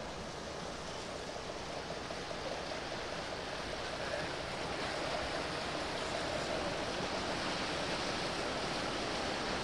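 Steady rushing noise of wind and water, slowly growing louder.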